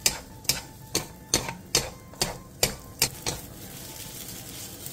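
Two wooden spatulas clacking against the pan about twice a second as shredded fish cake is stir-fried in oil over high heat, with a steady frying sizzle underneath. The clacking stops about three seconds in and the sizzle carries on.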